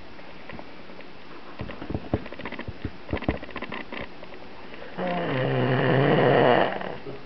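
A sleeping man snoring: one long snore, nearly two seconds, swelling and then breaking off, the loudest sound here. Before it come a few soft clicks and rustles.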